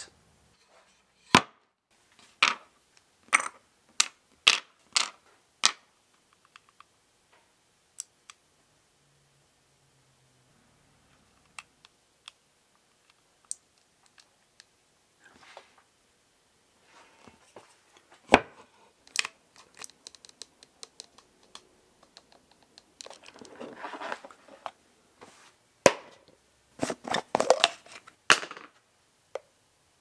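Black plastic knobs being handled and set down one by one on a paper-covered worktable: a run of separate sharp clicks and knocks, with short stretches of soft rustling and scraping between them.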